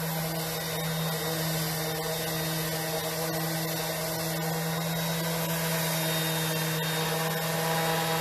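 Electric power sander running steadily on cherry wood: a constant motor hum with the hiss of the abrasive against the wood.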